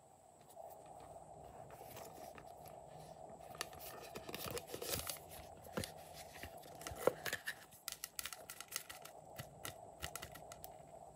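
Hands handling a hollow yellow plastic boot-shaped container and shaking small plastic sequins out of it: irregular rustling, crinkling and small clicks, busiest in the middle. A faint steady hum lies underneath.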